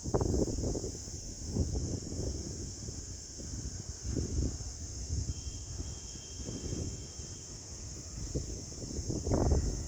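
Steady high drone of insects, with wind gusting on the microphone in uneven low rumbles.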